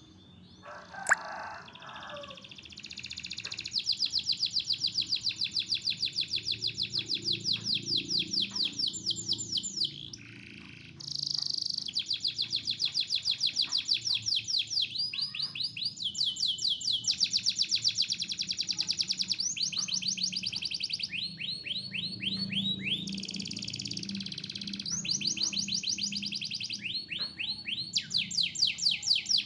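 Canary singing continuously in long, rapid trills of repeated high sweeping notes, pausing briefly about ten seconds in before carrying on.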